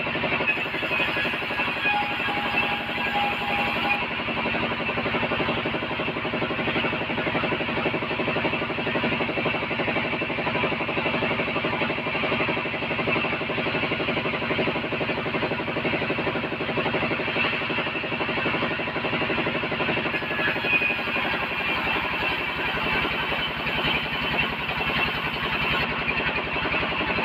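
Wood bandsaw running steadily while sawing timber: an even, continuous machine noise with a fast steady pulse and a constant hum that do not change throughout.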